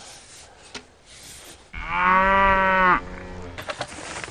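A cow mooing once: one loud, steady call lasting about a second, near the middle.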